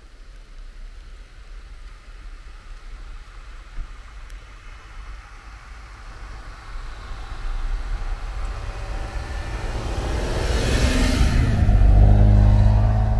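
Jeep Wrangler driving through deep snow, approaching and passing close by. Its engine and tyres grow steadily louder from about halfway through, with a rushing hiss just before the engine note is loudest as it goes past near the end.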